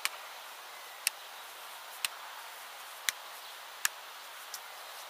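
Soccer ball being juggled by a group of players: six sharp touches on the ball, about one a second, the last one fainter, over a faint outdoor hiss.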